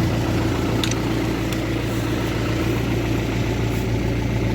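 Car engine running steadily at low revs, with a couple of faint clicks about a second in.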